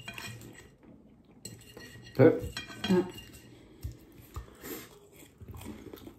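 Metal forks clinking and scraping on ceramic dinner plates while eating, with a few scattered knocks; the loudest comes about two seconds in.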